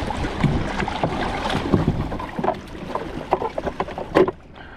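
Water sloshing and splashing around a fishing kayak. About halfway through comes a run of small clicks and knocks, with one louder knock near the end.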